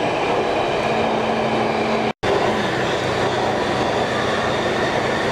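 Alstom Metropolis metro train running through a tunnel, heard from inside the passenger car: a steady rolling rumble with a faint steady whine. The sound drops out for an instant a little over two seconds in.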